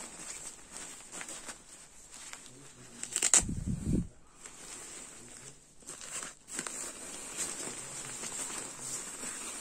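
Treated nylon shell of a goose-down Mountain Equipment sleeping bag rustling and crinkling as it is handled, with a louder rip about three seconds in as the hook-and-loop tab by the zip is pulled open.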